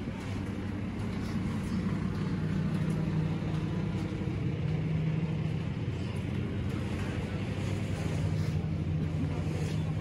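A steady low engine drone over continuous city street noise.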